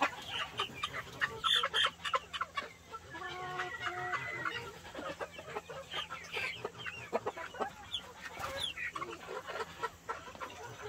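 Chickens clucking while they eat live black soldier fly larvae: many short clucks throughout, with one longer held call about three seconds in.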